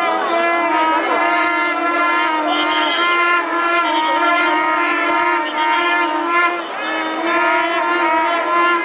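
A steady, loud pitched drone with many overtones, like a horn or wind instrument, with wavering higher notes over it; it breaks off briefly about two-thirds of the way through and resumes.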